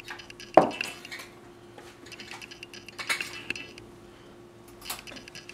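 A cooking utensil clinking and scraping against a wok as garlic chicken is stirred. A sharp knock about half a second in is the loudest sound, with a few lighter clinks later.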